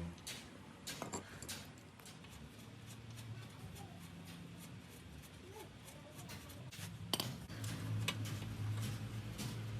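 Scattered light clicks and metallic taps of small metal parts and tools being handled, with a sharper click about seven seconds in, over a faint low hum.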